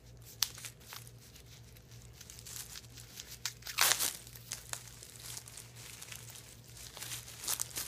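Paper wrapping crinkling and tearing as it is pulled and unwound from a handbag's metal chain strap, in scattered crackles with a louder rip about four seconds in and another cluster near the end.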